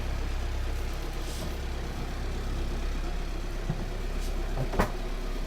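An engine running steadily with a low drone. A faint knock comes a little before the end, and a sharper, louder knock follows about a second later.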